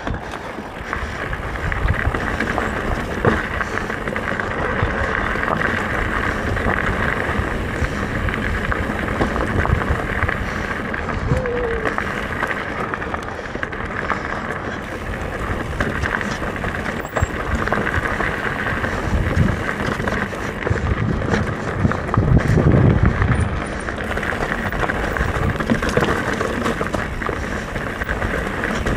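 Mountain bike riding a dirt singletrack trail: a steady rush of wind and tyre noise on the camera microphone, with irregular low thumps and rattles, the heaviest about three-quarters of the way through.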